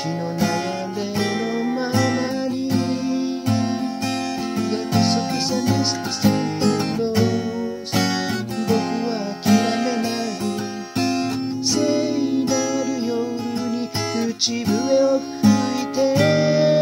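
Steel-string acoustic guitar strummed in a steady rhythm through an instrumental break, with a wavering melody line carried over the chords.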